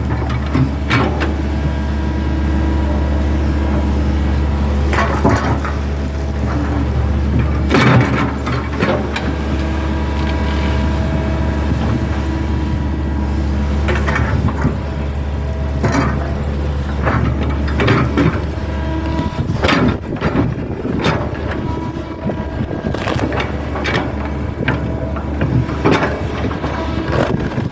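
Hitachi hydraulic excavator's diesel engine running steadily under load. Sharp knocks and cracks come at irregular intervals, a dozen or so, from the bucket and arm working against wood and ground. The engine's deep hum eases off a little about twenty seconds in.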